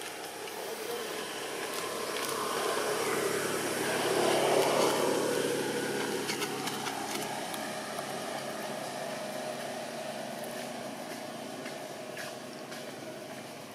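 A motor vehicle passing by: its engine grows louder, is loudest about four to five seconds in, and then fades away, its pitch dropping as it goes.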